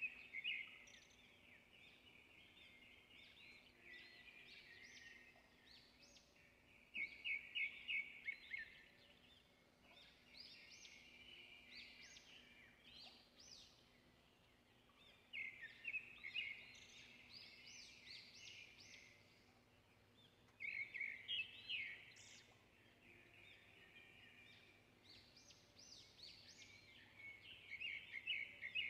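A bird singing: short runs of quick, high chirping notes repeated every few seconds, over near-silent room tone.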